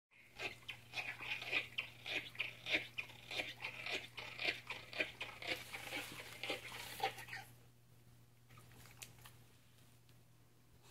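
English bulldog chewing and crunching on something hard, about two or three crunches a second, stopping about seven and a half seconds in.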